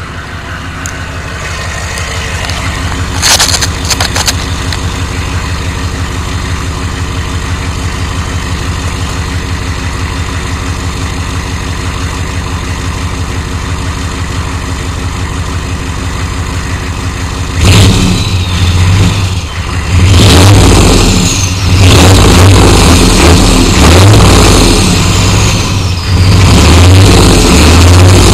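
1993 Chevrolet pickup's 6.5L turbo diesel V8 idling steadily, with two brief sharp noises about three and four seconds in; then, a little past halfway, the engine is revved hard several times in a row, much louder than the idle.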